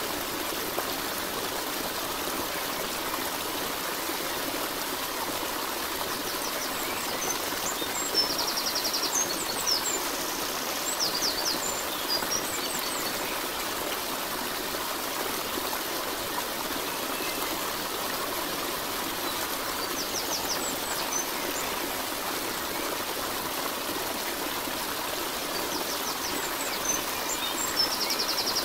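Steady running water of a stream, with small birds chirping now and then, most around a third of the way in and again near the end.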